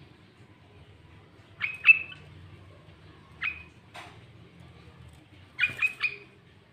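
Sooty-headed bulbul giving short, sharp calls in small groups: a quick pair, two single calls, then a fast run of three near the end.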